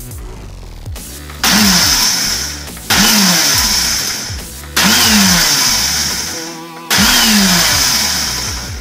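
Ninja blender pulsed four times, each burst starting abruptly and tapering off over about two seconds, as it grinds a dry mix of alum and iron pyrite into a fine powder.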